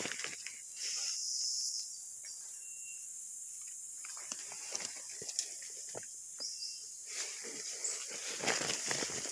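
Steady high-pitched chorus of insects, with leaves rustling and brushing as someone pushes on foot through dense undergrowth; the rustling grows busier near the end.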